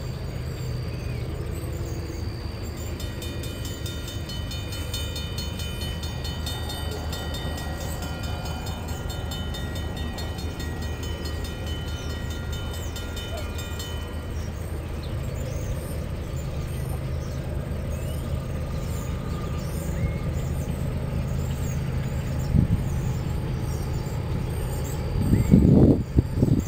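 Low, steady rumble of an approaching freight train's diesel locomotives still out of sight. A faint, even ringing sits over it from about three seconds in to about fourteen, and louder rushing bursts come near the end.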